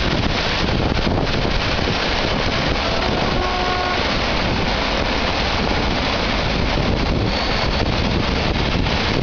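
Freight train of flat wagons loaded with vans rolling past: a steady rush of wheels on rails, with wind buffeting the microphone. A faint, brief high tone sounds about three seconds in.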